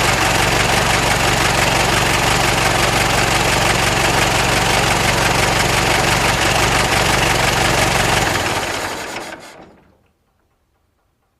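Old car engine idling steadily, then switched off about eight seconds in, running down and dying away over roughly two seconds.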